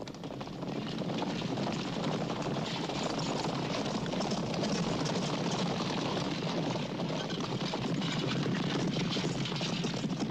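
Many horses galloping, a dense rumble of hoofbeats that swells about a second in and then holds steady.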